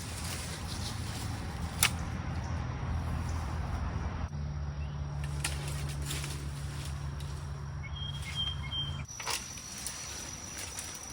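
Hand pruners cutting through small tree limbs: a few sharp snaps, the loudest about two seconds in, over a steady low rumble that stops abruptly about nine seconds in. A thin, steady insect trill takes over near the end.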